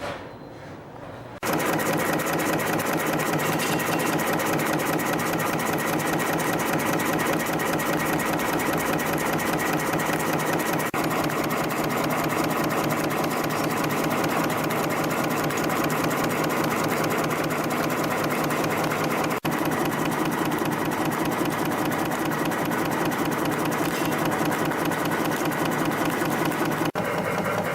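YHM CF-310 CNC spring coiling machine starting up about a second and a half in and then running steadily with a fast, even mechanical clatter as it coils 0.5 mm wire into compression springs.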